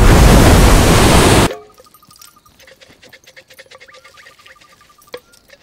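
A large ocean wave breaking loudly in the surf, cut off abruptly about a second and a half in. Faint insect-like chirping and ticking follows.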